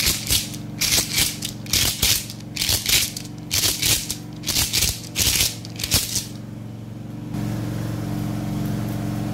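Ason, the bead-netted gourd rattle of Haitian Vodou, shaken in a steady rhythm about twice a second, stopping about six seconds in. A steady low hum sets in near the end.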